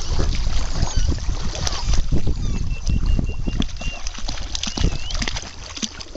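Shallow seawater splashing and sloshing as a puppy wades through it, with wind rumbling on the microphone.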